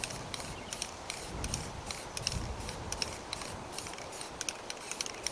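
Scattered light clicks and ticks at an irregular pace over a low rumble.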